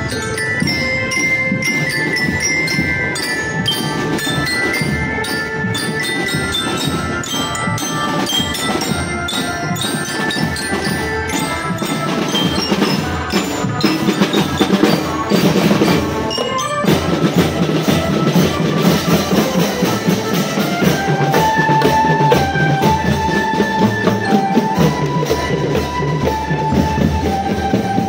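Drum band music: a melody of short mallet-percussion notes over steady drumming. About seventeen seconds in the music changes abruptly and the melody moves lower.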